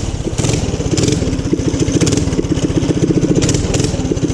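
Small motorbike engine running steadily, its rapid firing pulses even throughout. The rider finds it underpowered.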